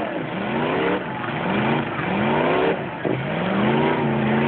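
Demolition derby truck engines revving hard, their pitch rising in three surges about a second each.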